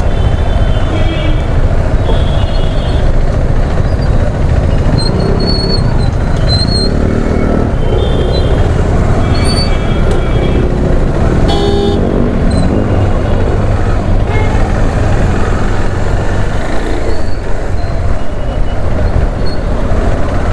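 Slow, congested highway traffic heard from a moving motorcycle: a steady low rumble of engines and road noise, with several short vehicle horn toots and one louder, sharper horn blast about halfway through.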